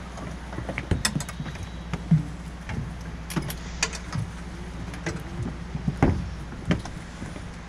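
Scattered clicks, knocks and thumps as people climb out of a de Havilland Beaver floatplane's cabin and step down its metal ladder onto the float, the loudest knock about two seconds in.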